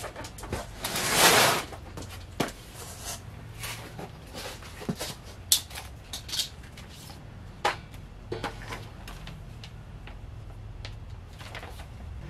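Paper and cardboard being handled: a loud rustle about a second in, then scattered light crinkles and taps as assembly instruction sheets are leafed through, over a low steady hum.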